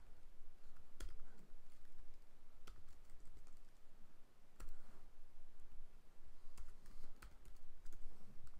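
Computer keyboard keys pressed one at a time: slow, irregularly spaced keystrokes of someone entering a username and password, over a faint low hum.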